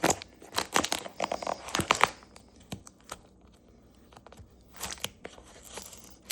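Hands tearing at and crinkling the packaging of a small shipping package, trying to rip it open by hand. Rustling and tearing come in the first two seconds, then a quiet pause, then brief rustles again near the end.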